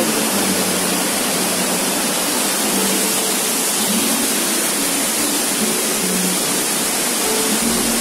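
Waterfall: a steady, loud rush of water falling into a rocky gorge.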